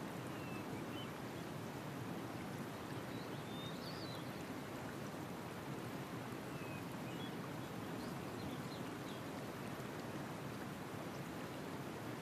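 Field recording of a river: a steady, even rush of flowing water picked up by a microphone out on the water, with a few faint, short bird chirps scattered through.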